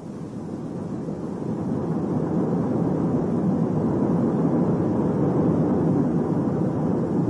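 A low, pitchless rumble that swells over the first two seconds, holds steady, then drops away at the very end.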